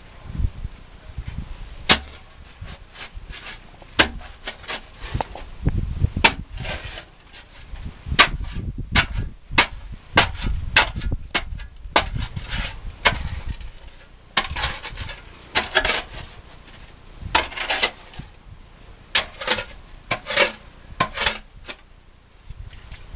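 A hand digging tool striking and scraping wet gravel and earth in a narrow hand-dug mining pit: sharp irregular knocks every second or so, with longer scraping strokes in the second half.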